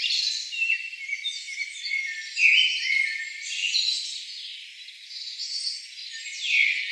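Forest chorus of many overlapping animal calls: short chirps, trills and sliding whistles, all high-pitched with no low sound beneath, swelling and fading in loudness.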